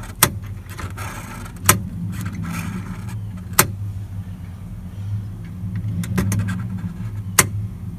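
A few sharp clicks spread over several seconds as the dash clock's setting knob on a 1981 Chevrolet C10 is worked, over a steady low hum.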